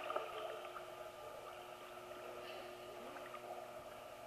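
Faint water sloshing and lapping from a dog paddling through a pool, over a low steady hum.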